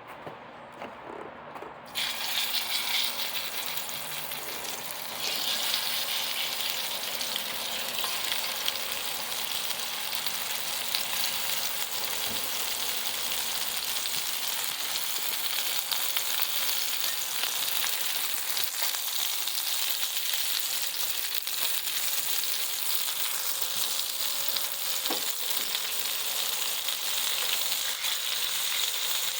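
Blackfin tuna medallions frying in hot bacon grease in a pan, a steady sizzle. It starts suddenly about two seconds in as the fish hits the fat and gets louder about five seconds in.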